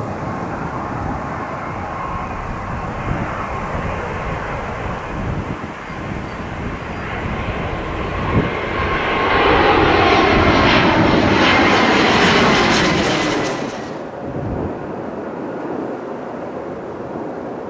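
Airbus A320-family twin-jet airliner on landing approach with gear down, its engines running as it comes in low. The noise builds to its loudest as it passes overhead about ten to thirteen seconds in, with a falling whine, then drops away suddenly to a lower rumble as it moves off towards the runway.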